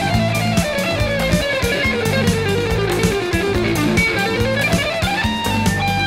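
Jazz-fusion instrumental with electric guitar over bass and drums. A melody line steps down in pitch for about four seconds, then climbs quickly back up near the end.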